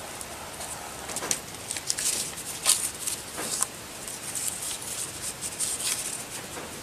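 Paper pages of a small handmade booklet rustling and crinkling as hands fold and handle them, in short irregular crackles.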